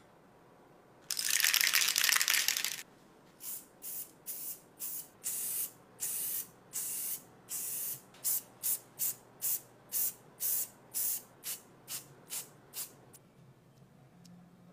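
Aerosol spray-paint can spraying: one long spray of about a second and a half, then a run of about twenty short spurts that come quicker and shorter toward the end, about two a second.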